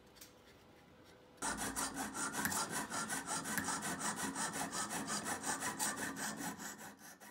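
Small hand saw working back and forth, cutting through the 3/32-inch welding-rod hinge pin of a homemade aluminum camera body. The rasping strokes come about three to four a second and begin about a second and a half in.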